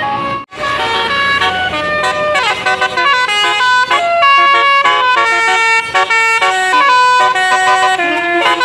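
Basuri 'telolet' bus horn, a multi-tone musical horn, playing a quick stepping melody of several notes, with a brief break about half a second in.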